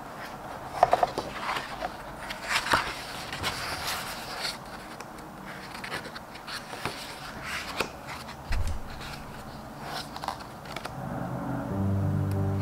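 Pages of a large hardcover art book being turned by hand: a run of crisp paper rustles and soft flaps and clicks, a few seconds apart. Music with held notes comes in near the end.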